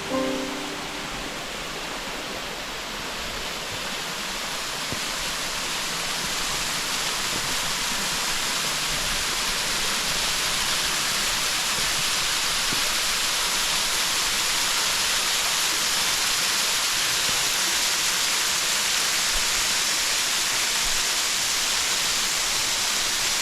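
Waterfall: a steady, even rush of falling water, growing a little louder over the first several seconds.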